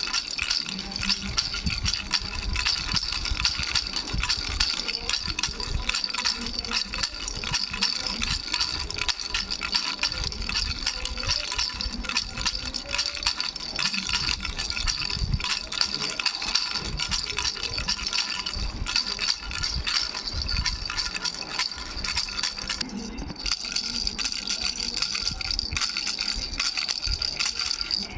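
A baby's three-bell rattle being shaken without pause, its small bells jingling in a rapid, continuous patter with a steady high ring.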